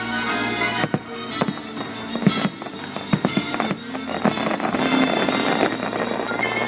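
Aerial fireworks bursting overhead: many sharp bangs and crackles at irregular intervals, over loud orchestral show music.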